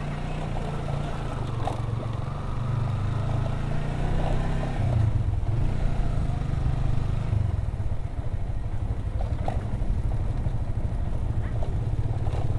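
Motorcycle engine running under way, heard from the rider's seat. The engine note shifts and grows louder about five seconds in, with a few light rattles along the way.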